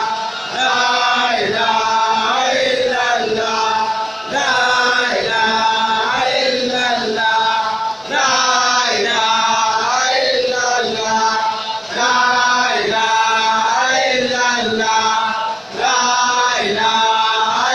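Many male voices chanting Islamic dhikr together, a melodic phrase repeated about every four seconds with a short breath between repeats.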